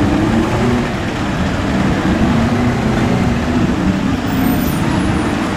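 Heavy military 6x6 trucks driving slowly past close by: a steady, loud diesel engine rumble with a wavering engine note.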